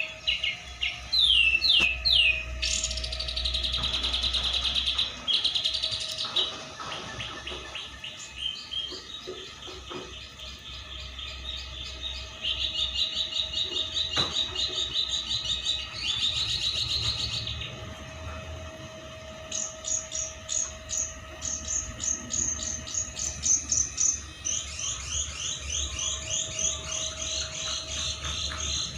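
Tame pet bird calling in long runs of quick, high chirps and rattling trills, loudest in the first few seconds and again in fast chattering series toward the end.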